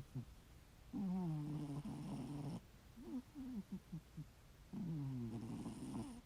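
A sleeping cat snoring: two long snores about four seconds apart, each sliding down in pitch and then holding, with shorter wavering breaths between them.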